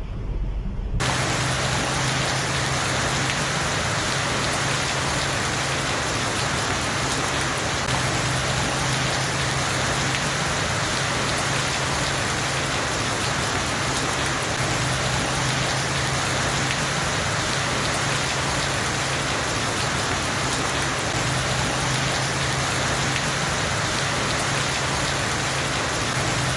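Heavy tropical downpour, a dense, steady hiss of rain that starts about a second in, with a faint low hum underneath.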